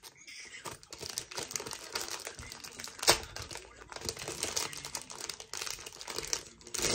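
Small clear plastic jewellery bag crinkling as it is handled in the hands, with a sharp louder crackle about three seconds in and another near the end.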